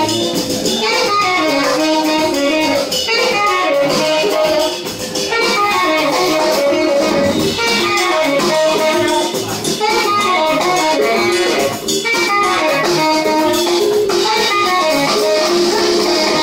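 Small live jazz band playing an up-tempo tune: saxophone carrying the melody in quick runs over plucked upright double bass and a drum kit.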